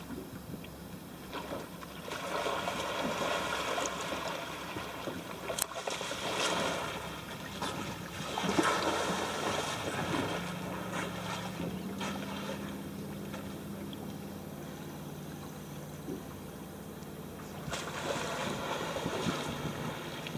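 Wind and water noise aboard a small boat on open sea, rising and falling. A low steady motor hum comes in about ten seconds in.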